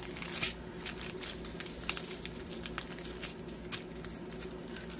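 Thin plastic packaging crinkling and crackling in irregular sharp bursts as a strip of small sealed bags of diamond-painting drills is unrolled and pressed flat by hand.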